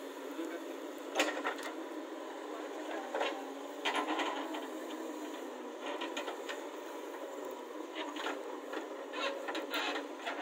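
Diesel engines of a JCB 3DX backhoe loader and a Swaraj 744 tractor running steadily, with half a dozen short sharp knocks scattered through as the loader's bucket works the earth.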